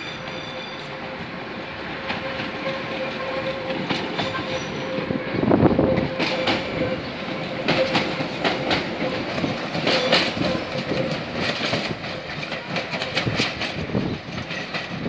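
Island Line Class 483 train (former London Underground 1938 tube stock) pulling away and passing close by, with a steady whine for the first ten seconds or so. It is loudest about five and a half seconds in, and from about six seconds in its wheels click over the rail joints.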